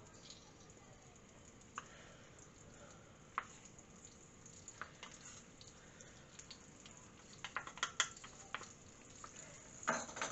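Faint sizzle of sliced onion in warming olive oil in a clay tagine, with scattered clicks of a small spoon tapping and scraping spice out of a steel bowl, coming thicker near the end.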